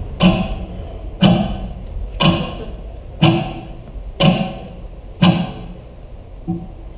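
A low, pitched percussive hit repeating about once a second. There are six even strikes, each ringing briefly, then a softer one near the end.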